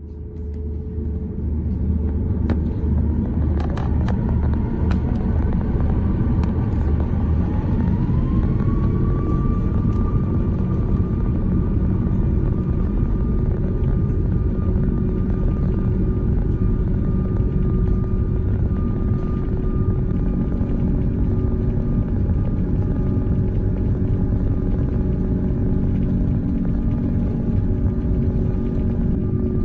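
Jet airliner engines running at high power with a steady deep rumble. About eight seconds in, a whine climbs in pitch and then holds steady as the engines spool up.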